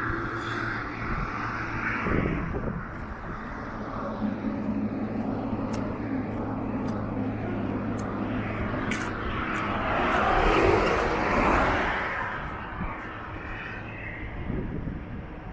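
Road traffic: a steady engine hum, with a vehicle passing close by and loudest about ten to twelve seconds in, then fading.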